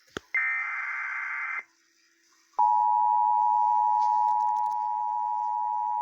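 Emergency Alert System tones for a flood warning. The last SAME data-header burst, a harsh electronic buzz about a second long, comes first; after a second's pause the steady two-tone EAS attention signal begins and holds.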